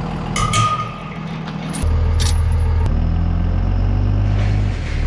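Dodge 4x4 pickup's engine idling, with metal chain clinking and rattling near the start. About two seconds in, the engine sound grows louder and deeper, and it stays steady from there.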